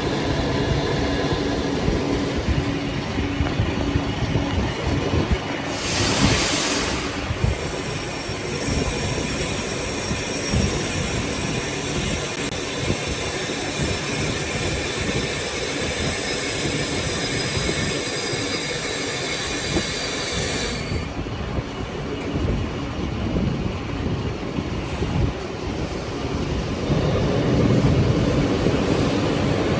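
Eastern CNC C400K CNC lathe machining a test cut, a steady mechanical rumble throughout. A brief hiss comes about six seconds in, and a thin high whine sounds from about seven seconds until it stops abruptly past the twenty-second mark.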